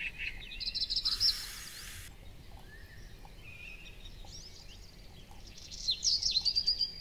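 Small songbirds chirping and trilling, with a string of rapid chirps near the end. A burst of hiss lasting about a second starts and stops abruptly about a second in.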